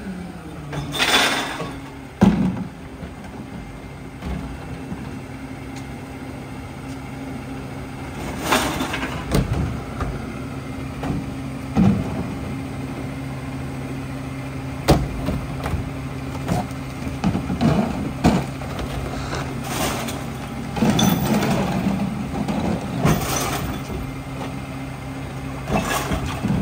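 Diesel engine of a Mack Granite rear-loader garbage truck running steadily. Short bursts of hiss and a few sharp knocks break in now and then, about a second in and several more times later.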